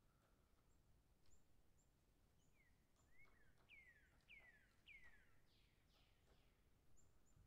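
Faint birdsong: a quick run of about five descending notes in the middle, with a few short high chirps before and after, over near-silent background hiss.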